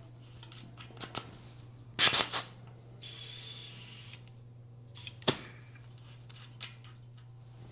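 Clicks and clatter of a pump head being worked on a bicycle tyre valve, with about a second of hissing air in the middle as the tyre is topped up.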